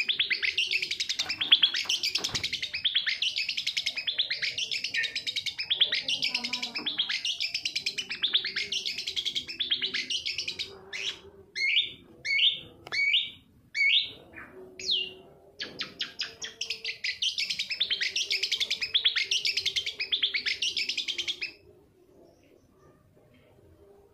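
Long-tailed shrike (cendet) singing a fast, unbroken chatter, with a short run of separate whistled notes partway through. The song stops about three seconds before the end.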